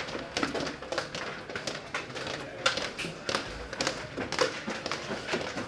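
Footsteps of several people walking on a hard corridor floor: a run of irregular sharp taps, several a second.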